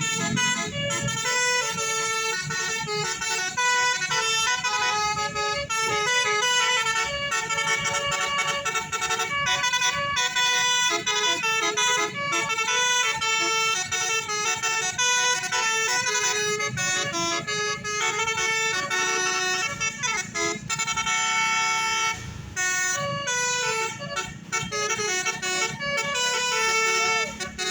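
Bus 'telolet basuri' musical air horn playing a long melody of quickly changing notes, with one longer held chord about three quarters of the way through. A steady low hum runs beneath it.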